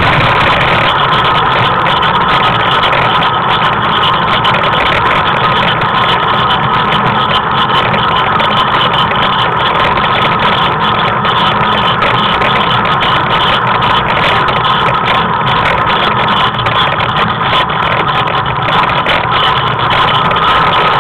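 Tricycle rolling along an asphalt street: a loud, steady noise of its wheels and frame that does not let up.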